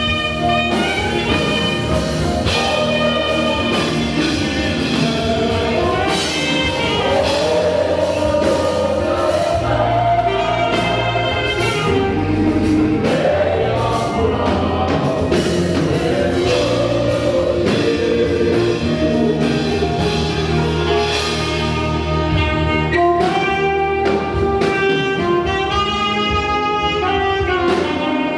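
Live African gospel praise music: a saxophone playing lead over a full band with steady drums, with singing.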